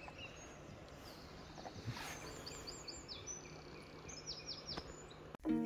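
Faint outdoor background noise with a small bird chirping: runs of short, high notes, each falling in pitch, about two seconds in and again about four seconds in.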